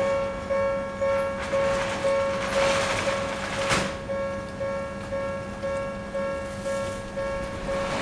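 Japanese railway level crossing warning bell on the Enoden line, ringing in an even electronic clang about twice a second, the signal that a train is approaching. A rushing noise swells and peaks about four seconds in.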